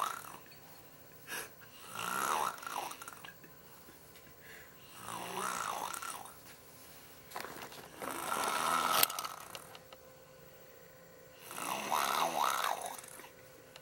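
A girl imitating snoring with her lips: four drawn-out snores, each about a second and a half long and about three seconds apart, with a wavering pitch.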